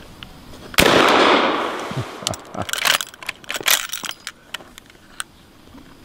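A single shot from a Spencer repeating rifle, its report echoing and fading over about a second, followed by a run of sharp metallic clicks as the action is worked for the next round.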